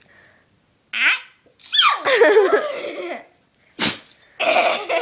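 A puppy sneezing in sharp, quick bursts, about a second in and again near the end, with a person laughing loudly in between.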